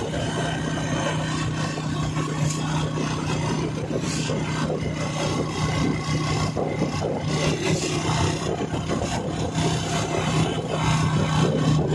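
Vehicle engine running at a steady pitch while travelling at speed, under rough wind and road noise on the microphone.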